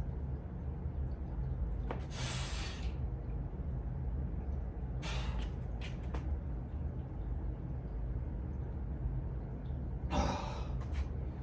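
A person breathing hard, with three loud breathy exhales of about a second each, over a steady low hum.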